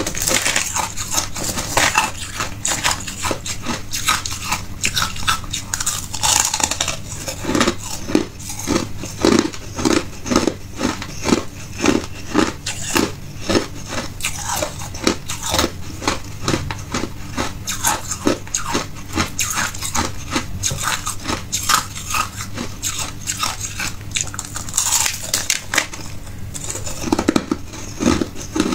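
A person biting and chewing chunks of hard clear ice: a steady run of sharp crunches, about two a second.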